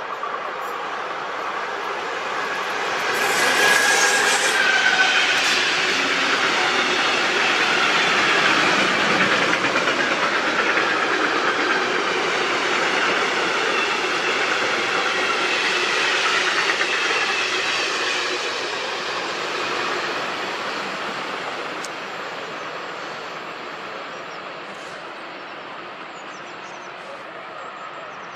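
A train passing on the line: the noise of wheels on rails builds over the first few seconds, holds loud with clickety-clack and rumble, then fades away over the last ten seconds. A brief high squeal sounds about four seconds in.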